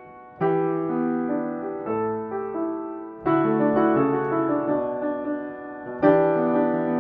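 Slow background piano music: a new chord is struck about every three seconds, and each rings and fades before the next.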